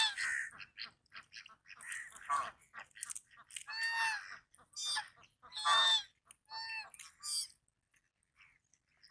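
Goose honking: short, scratchy calls at first, then a series of about five loud, nasal honks, each dropping slightly in pitch.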